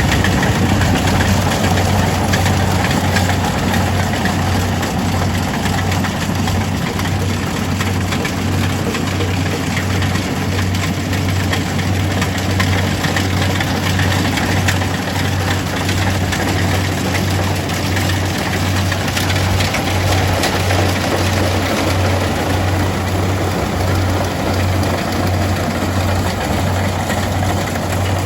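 Kubota DC-70G rice combine harvester running steadily: its diesel engine and machinery make a dense mechanical noise over a low hum that pulses at a regular beat.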